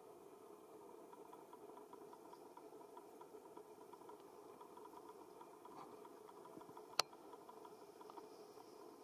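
Near silence: a faint steady background hum, broken by one sharp click about seven seconds in.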